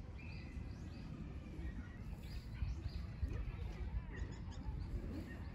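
Outdoor ambience: small birds chirping and twittering in short calls over a steady low rumble.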